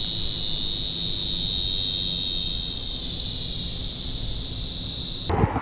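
Steady high-pitched insect chorus buzzing without a break, then cutting off suddenly near the end.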